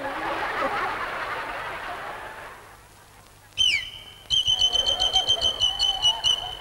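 Audience laughter, then after a short lull a shrill whistle slides down in pitch. It goes on as one steady high note, tooted in quick pulses about four a second.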